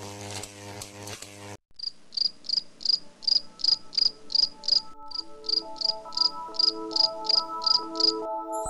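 Cricket chirping steadily, about three short high chirps a second, with a brief pause halfway through. Soft, held music notes come in under it about halfway; before the chirping starts, the intro music cuts off abruptly.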